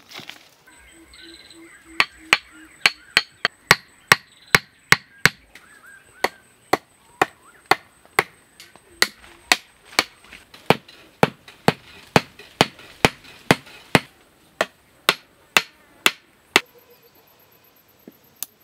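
A tool striking wood in a steady chopping rhythm, about two to three sharp hits a second, starting about two seconds in and stopping shortly before the end, with one brief pause early on.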